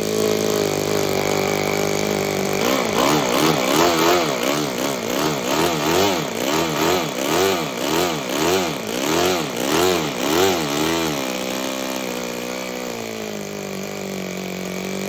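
Toyan Otto FS-L200 two-cylinder four-stroke nitro model engine idling, then revved up and down by hand on the throttle in quick repeated blips, about one and a half a second. About eleven seconds in it settles back to a steady idle.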